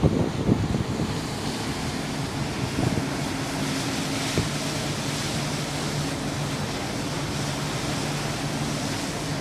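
High-speed catamaran ferry Leonora Christina under way, its engines giving a steady low hum under the rush of its foaming wake and spray. Wind buffets the microphone, heaviest in the first second, and the water hiss swells around the middle.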